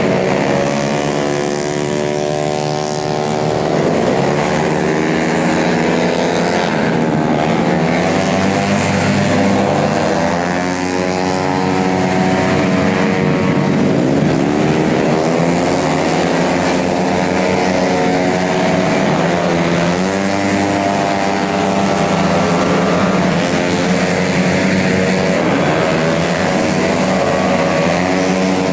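Several tuned 150cc automatic racing scooters running hard at once, their engines overlapping, the pitch repeatedly rising and falling as they rev and back off.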